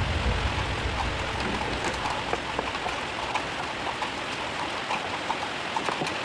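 Water sound like rain: a steady hiss with many small scattered drips and patters.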